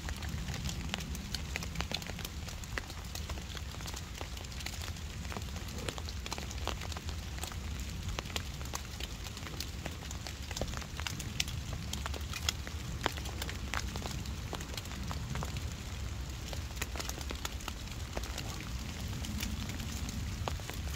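Rain falling, with many scattered sharp drop ticks over a low steady rumble.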